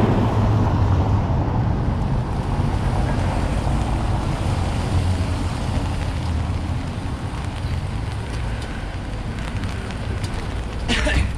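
Outdoor street noise with a steady hiss and a wavering low rumble from wind buffeting a GoPro Hero7 Black's microphone. A short sharp noise comes near the end.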